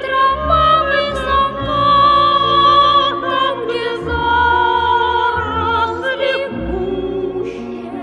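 Slow, operatic-style music: a voice holds long notes with a wavering vibrato over sustained accompaniment.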